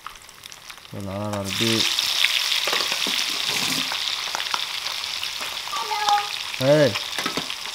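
A piece of coated fish lowered with tongs into a pan of hot oil. About a second and a half in the oil breaks into loud, steady sizzling, which goes on as it fries alongside two other fish. Now and then the tongs click on the pan.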